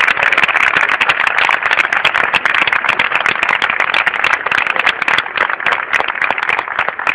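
Crowd applauding: many people clapping at once in a dense, continuous patter.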